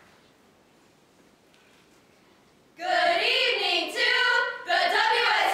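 Near silence, then about three seconds in a group of women start singing together a cappella in unison, in phrases with short breaks.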